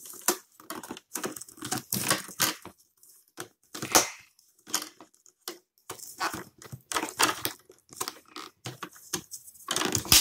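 Plastic keyboard trim bezel of a Dell Latitude E7440 being pried up and peeled off by hand, giving irregular clicks, crackles and snaps as its clips let go, with sharper snaps about four seconds in and near the end.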